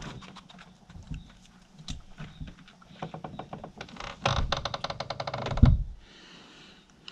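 Raccoon eating, making a string of crisp clicks and crunches of chewing. The clicks quicken into a rapid run about four seconds in and end in a single low thump.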